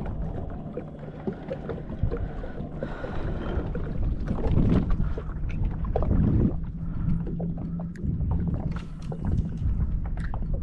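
A kayak on the water, with water sloshing and knocking against the hull and a few louder swells. Wind rumbles on the microphone from a light breeze.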